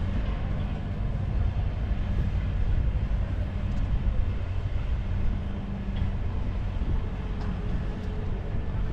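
Open-air ambience: a steady low rumble with no distinct events.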